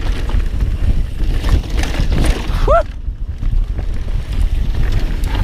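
Wind buffeting the microphone over the rumble and rattle of a mountain bike rolling fast down a dirt trail, with scattered clicks and a brief rising squeak a little past halfway.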